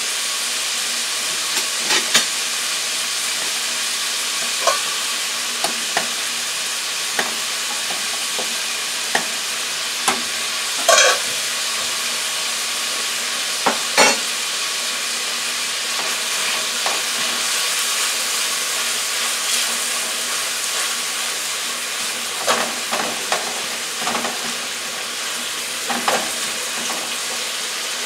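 Ground beef frying in oil in a skillet, sizzling steadily, with a few sharp clicks and pops. Near the end a spatula stirs and scrapes through the meat.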